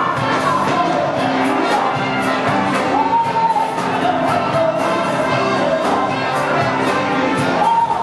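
Live band music spilling out of an open club doorway, with a steady beat under a lead line that holds long notes.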